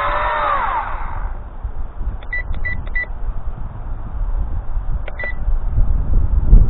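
The WLToys V262 quadcopter's four motors whine, their pitches gliding up and down and crossing one another, then die away about a second in; the owner is concerned that one motor starts up slower than the others. Short electronic beeps follow, three quick ones about two seconds in and another about five seconds in, over a low rumble of wind on the microphone.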